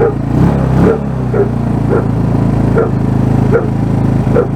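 A 150cc GY6 single-cylinder four-stroke scooter engine, just started, idling steadily, while a dog barks over it about once or twice a second.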